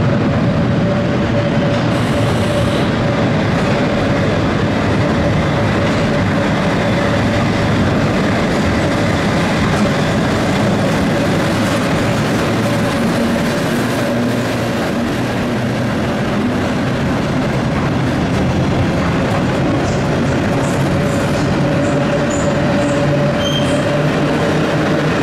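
A London Underground battery locomotive hauling a train of wagons slowly along a tube station platform. It makes a steady rumble with a constant whine over it.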